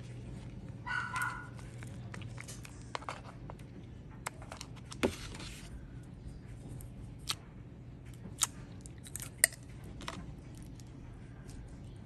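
Scattered light clicks and taps from hands handling a small plastic cup of pink shampoo slime and pulling the slime, with a short hissy rustle about five seconds in, over a low steady hum.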